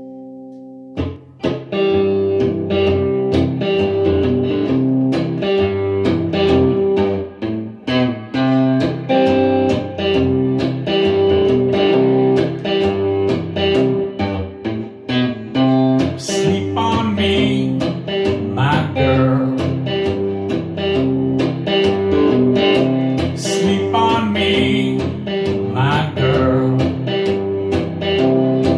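Instrumental intro of a blues-rock song: electric guitar chords strummed over bass and drums, kicking in about a second in. From about halfway, a bending lead melody plays over the top.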